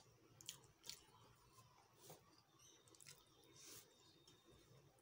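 Faint eating sounds: wet clicks and squishes of chewing and of fingers mixing rice and curry on a steel plate, about four sharper clicks over a low hush.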